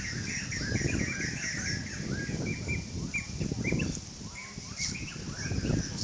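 Small birds chirping over and over, quick short calls that slide up and down, over a low, uneven rumble.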